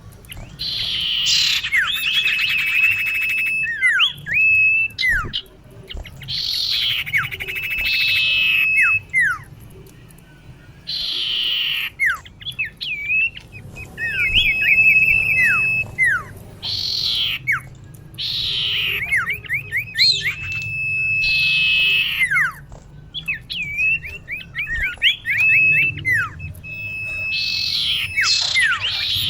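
Female common iora (cipoh) calling, a call used to lure a male. The phrase repeats about every five seconds: a harsh rasp, then a level whistle and a run of quick falling notes.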